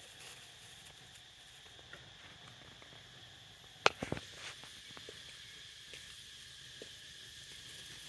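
Dry fallen leaves rustling faintly as young macaques move and play on them, with a quick cluster of sharp crackles about four seconds in and a few lighter ticks after.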